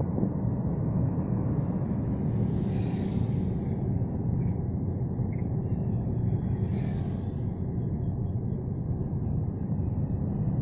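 Steady low rumble of a car driving, road and wind noise heard from inside the car. A high insect chirring swells twice, around three and seven seconds in.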